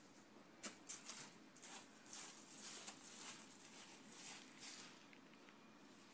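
Faint rustling of dry fallen leaves being disturbed on a lawn, heard as a string of short, irregular swishes.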